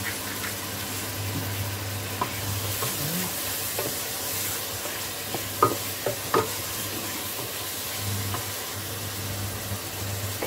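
Baby octopus with onion and cabbage sizzling and frying in a stainless steel pot while being stirred with a wooden spoon. A few sharp knocks of the spoon against the pot come about halfway through.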